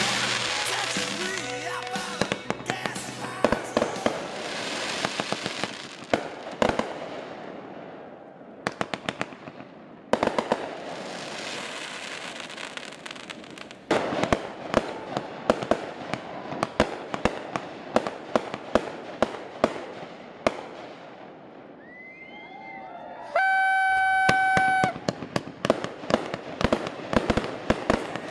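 Fireworks going off: rapid, irregular strings of crackling pops over a steady hiss, with sharper bangs now and then. Near the end there are a few gliding whistles, then a steady high-pitched tone lasting about a second and a half.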